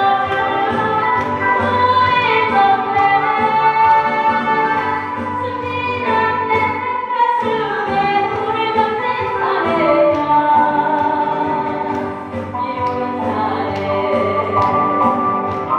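Female singer performing a Korean trot song over a backing band, holding long wavering notes above a steady accompaniment.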